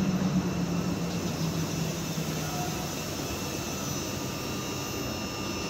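Class 334 electric multiple unit running past, a steady low hum and rumble that fades gradually.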